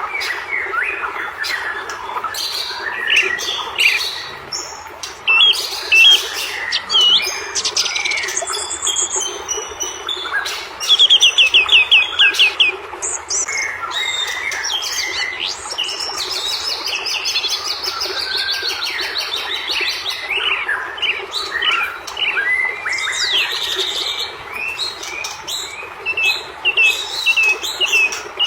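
White-rumped shama (murai batu) singing a varied, unbroken song of whistles and chirps, with a fast run of loud repeated notes about eleven seconds in.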